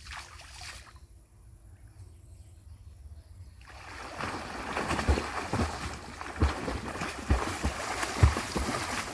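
Pond water splashing and sloshing, quiet at first and then growing louder about four seconds in, with irregular low thumps.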